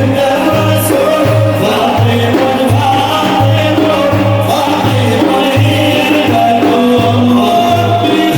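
Sufi devotional music: frame drums beating a steady low rhythm of about two beats a second, under a group of voices chanting a praise song for the Prophet.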